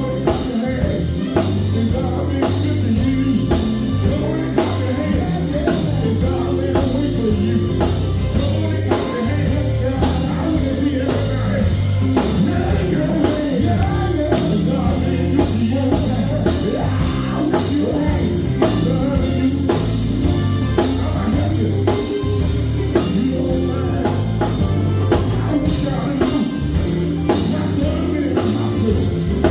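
Band music with singing over drum kit, bass and guitar, loud and steady with a regular beat.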